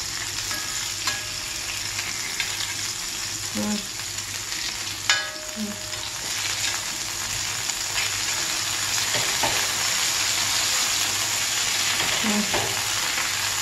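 Pomfret steaks shallow-frying in a little oil on an iron dosa tawa: a steady sizzle, with a spatula scraping and knocking against the pan as the pieces are moved and turned. One sharp ringing clink about five seconds in.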